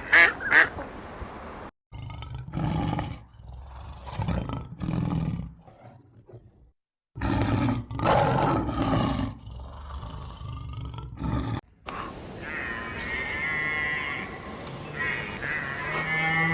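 Animal calls from several short clips cut together: a run of rough, roar-like calls, then higher calls with clear tones in the last few seconds.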